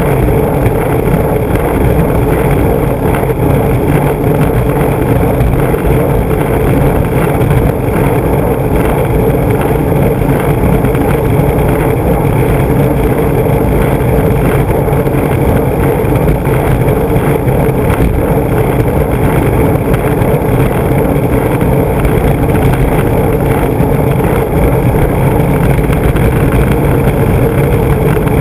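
Large urethane skateboard wheels rolling steadily over coarse asphalt, a loud continuous rumble picked up through a camera mounted on the board itself, along with the vibration of the truck.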